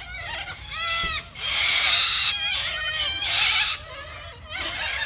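White cockatoos calling from the trees: shorter rising-and-falling calls, then two long harsh screeches about a second and a half and three seconds in.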